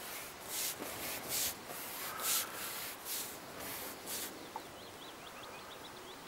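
A hooked carp splashing and thrashing at the surface while being played on pole elastic: about seven short splashes over the first four seconds. A small bird chirps in the background near the end.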